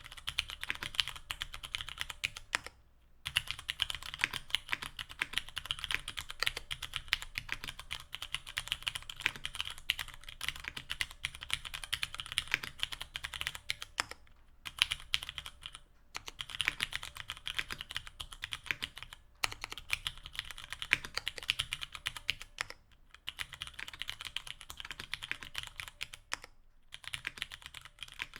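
Continuous fast typing on a mechanical keyboard with Cherry MX Hyperglide Brown tactile switches (55 g), mounted on an aluminium plate with GMK keycaps. It breaks off for brief pauses a few times.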